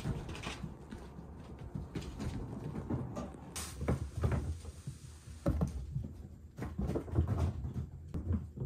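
Cats' paws thudding and pattering irregularly on tatami and a wooden floor as the cats chase each other at full speed, with a few sharper knocks.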